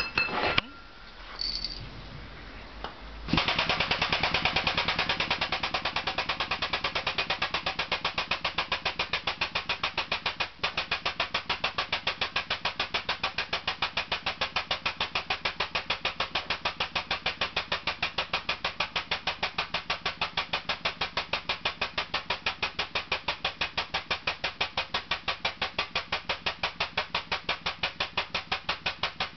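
Air-driven pump of a 12-ton air/hydraulic bottle jack running, a rapid, even pulsing that starts about three seconds in after a few clicks, as it pumps the ram of a pipe bender upward.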